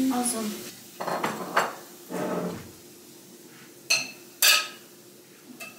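Plates, glasses and cutlery clinking on a laid dinner table. A few soft knocks are followed by two sharp, ringing clinks about four and four and a half seconds in.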